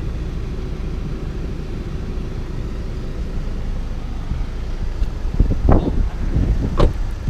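Steady low rumble of road noise inside a moving car, with a few short knocks or bumps about five to seven seconds in.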